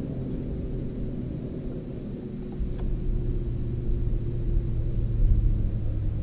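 Low, steady motor-like rumble with a faint hum, getting a little louder from about halfway through, with one light click just before that.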